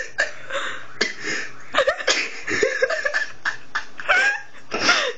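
Giggling laughter mixed with short coughs and breathy bursts, in irregular spurts with some squeaky rising-and-falling vocal sounds.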